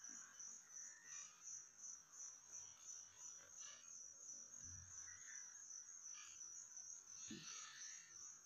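Near silence, with faint insect chirping: a steady, rapidly pulsing high chirr, and a few softer calls now and then.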